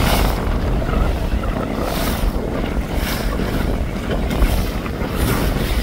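Wind buffeting the microphone over water rushing and splashing on a sailing boat in waves, with surges of spray noise every second or so.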